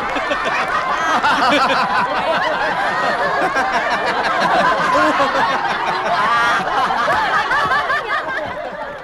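A crowd of men and women laughing loudly together, with many voices overlapping, growing quieter near the end.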